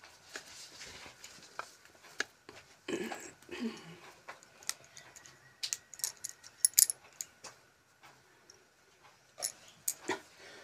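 Hands picking over a heap of kachnar (Bauhinia) flower buds, snapping off stalks: scattered small snaps, clicks and rustles, sharpest in a cluster a little past the middle.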